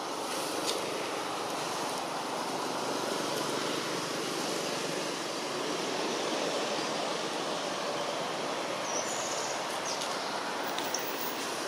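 Steady outdoor background rush with no clear pitch, with a few faint clicks and a brief high chirp about nine seconds in.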